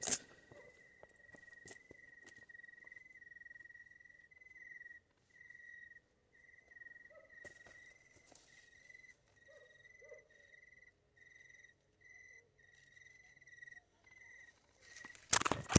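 A cricket trilling at one steady high pitch in repeated bursts of about a second, with short gaps between them. Faint rustles of crop leaves come through, and a brief loud rustle sounds near the end.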